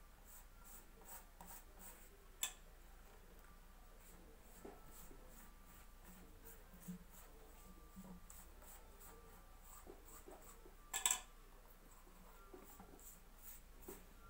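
Silicone pastry brush greasing a thin sheet of baklava dough in a metal tray: faint, repeated soft brushing strokes. A sharp tap comes about two and a half seconds in, and a louder one near eleven seconds.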